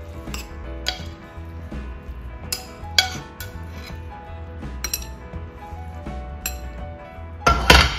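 Metal tongs clinking and scraping against a nonstick frying pan and a ceramic bowl as beef stir-fry is served onto noodles. There are sharp clinks every second or so and a louder burst of clatter near the end, over soft background music.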